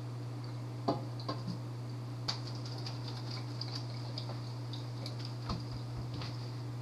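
A few light clanks and taps of a metal pot and strainer being handled at the sink, the sharpest about a second in and just after two seconds, over a steady low hum.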